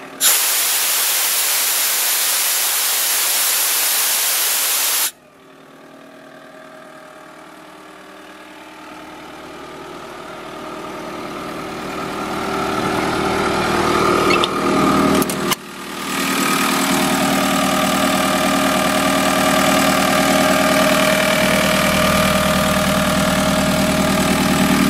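Compressed air hissing loudly out of an open service valve on a 2010 Airman PDS185S diesel air compressor, cutting off sharply about five seconds in. The compressor's diesel engine then runs steadily, growing louder over the next several seconds, with a brief break about fifteen seconds in.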